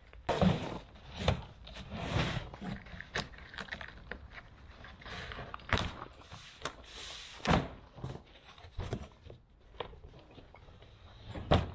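Large cardboard boxes being handled and shifted in a pickup truck's load bed: irregular knocks and thuds with short scraping and rustling of cardboard.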